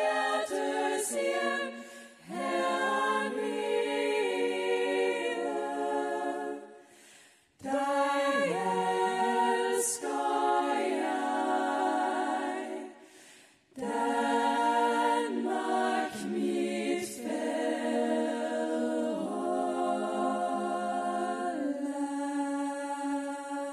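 Female choir singing a cappella in close harmony into microphones, in sung phrases with two short breaks between them.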